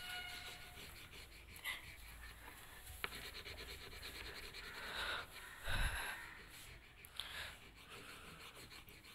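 Wax crayon rubbing on paper in rapid back-and-forth colouring strokes, with one louder bump about six seconds in.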